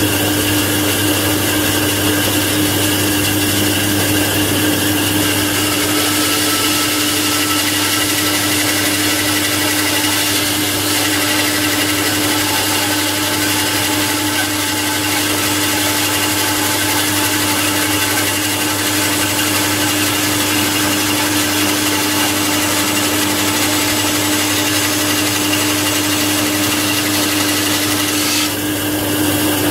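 Old bandsaw running loud and steady, its motor humming, while a length of timber is fed through the blade.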